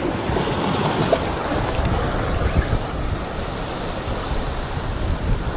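Waves breaking and washing over shoreline rocks, with wind buffeting the microphone.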